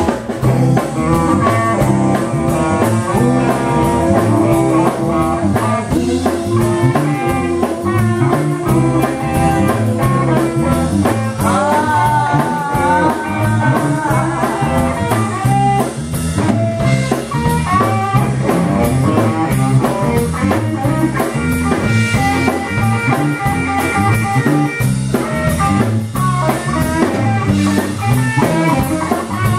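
Live band playing blues-style rock and roll: electric guitar and a drum kit keeping a steady beat, with a woman singing into a microphone. A held note bends upward about halfway through.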